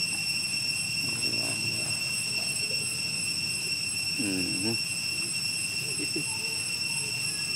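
Steady high-pitched insect chorus, with a few brief voice-like sounds, the clearest a short rising-and-falling call about four seconds in.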